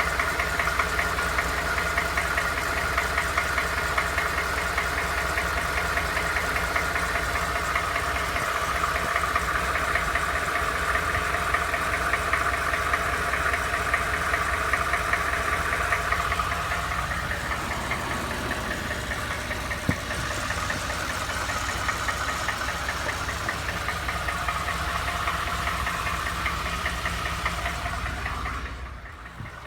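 Ford F-150 engine running with a rapid, steady knock beneath the engine hum. The sound changes a little past halfway and dips briefly near the end.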